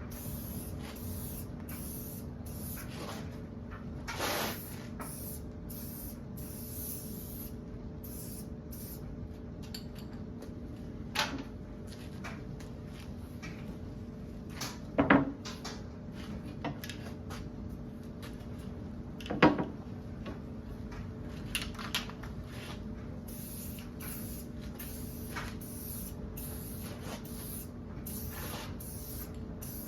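Aerosol spray-paint can hissing in many short bursts as small parts are sprayed, over a faint steady hum. A few sharp knocks as the can or parts are handled, the loudest about halfway through and again a few seconds later.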